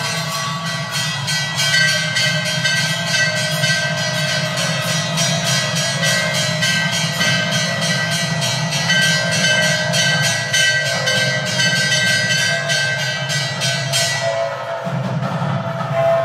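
Temple bells clanging rapidly in a steady rhythm, with held ringing tones, for a five-lamp arati. The fast clanging stops about two seconds before the end, leaving the ringing.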